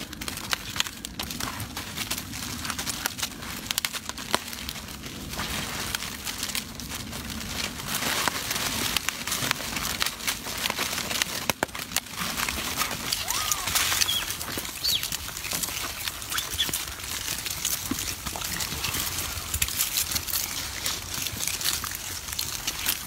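A troop of macaques handling and eating food: a steady mix of rustling, crinkling and small clicks, with a couple of brief squeaks, one around the middle and one near the end.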